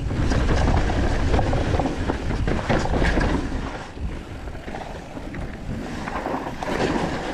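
Wind buffeting the microphone of a camera carried by a mountain biker riding a dirt trail, over the rumble and rattle of tyres and bike on rough ground. It is loudest in the first few seconds, eases in the middle and picks up again near the end.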